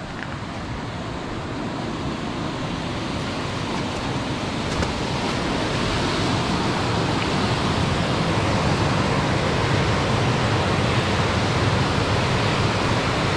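Rushing water pouring through a small concrete spillway beneath a wooden footbridge: a steady rush that grows louder over the first few seconds, then holds.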